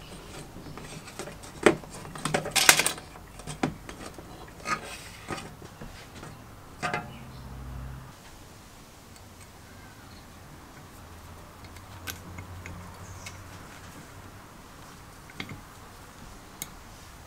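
Thin tin-can sheet metal being handled and bent by hand: a run of sharp clicks and light metallic clinks in the first half, loudest about two to three seconds in, then mostly quiet with a few faint ticks.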